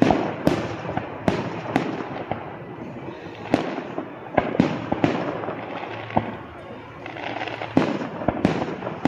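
Aerial fireworks shells bursting overhead in a rapid barrage: about a dozen sharp bangs at uneven intervals, some close together. The loudest come about half a second in, near the middle, and shortly before the end.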